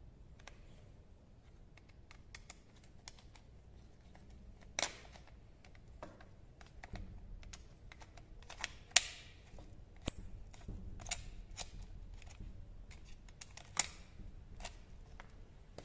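Small clicks and taps of a carburetor and intake gasket being handled and seated by hand on a small engine. A few louder plastic-and-metal clacks stand out, and one about ten seconds in has a brief high metallic ring.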